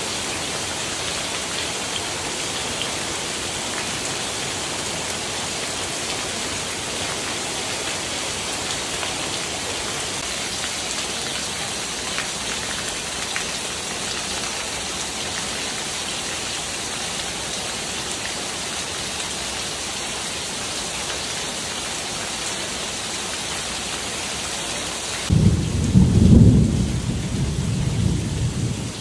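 Heavy rain pouring steadily, an even hiss of rain on leaves, roof and paving. Near the end the hiss drops and a loud, low rumble of thunder rolls for a few seconds.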